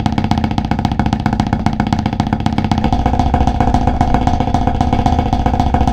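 Snare drum played with sticks in very rapid, continuous strokes, like a roll, the head ringing at a steady high pitch; it gets a little louder about halfway through.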